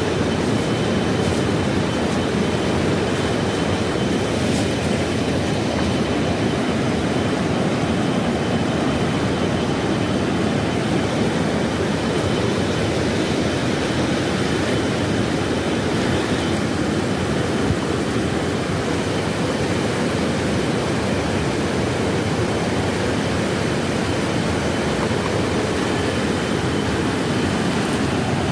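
Steady rushing roar of a swollen river, its fast, high water running continuously.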